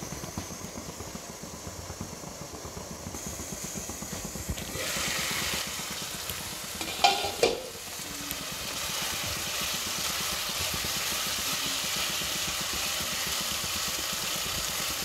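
Potato and cauliflower curry sizzling in a kadai under a glass lid; the lid is lifted off with a brief clatter about seven seconds in, after which the sizzling is louder and steady. A wooden spatula stirs the pan near the end.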